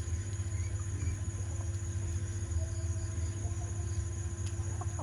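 A steady low hum with a constant high, thin drone over it, and a few faint short calls, likely from the chickens, about two and three seconds in.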